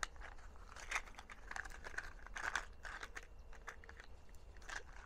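Faint rustling and light, irregular clicks of a small box of Federal Champion .22 rimfire cartridges being handled and opened, the cartridges knocking in the box.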